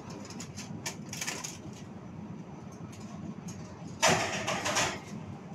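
Foil-covered metal baking tray going into a hot oven: a sudden harsh scrape of metal lasting just under a second, about four seconds in, over a low steady hum.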